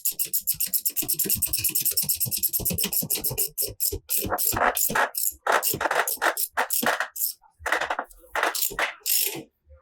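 Hand-tool work on a wheel hub. A fast, even run of ratchet clicks lasts about two and a half seconds. Then comes a series of heavier metal strikes, roughly two a second, as the new hub and bearing are driven into place.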